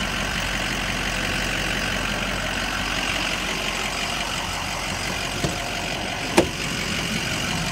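Ford 6.0 Power Stroke V8 turbodiesel idling steadily, with a single sharp click about six seconds in as the cab door is opened.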